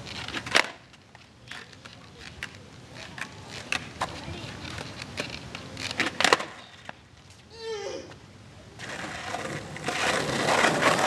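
Skateboard on asphalt: sharp board clacks from trick attempts at the start and again about six seconds in. Wheels then rolling on the pavement, growing louder from about nine seconds in as the board comes closer.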